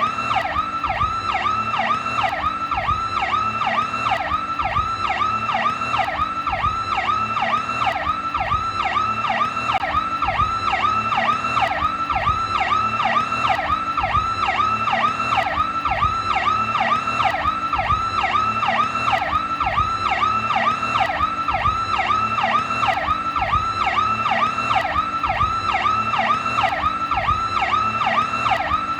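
Police siren sounding its Powercall tone: a continuous, fast, evenly repeating up-and-down sweep in pitch.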